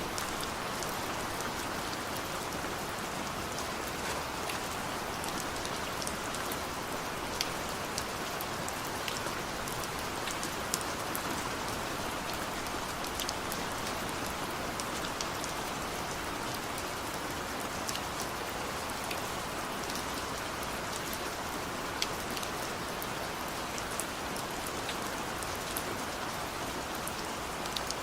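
Heavy rain falling steadily, a continuous hiss with many sharp drop impacts pattering on a surface.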